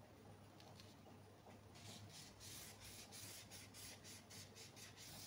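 Felt-tip marker scratching across paper along a ruler as a pattern line is drawn. It is faint and starts about two seconds in as a run of short strokes.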